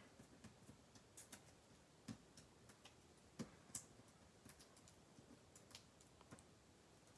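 Near silence with faint, scattered light clicks and taps as paper-crafting supplies are handled.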